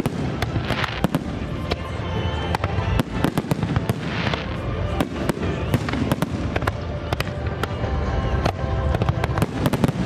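Aerial firework shells bursting in a dense barrage, a rapid string of sharp bangs with overlapping reports.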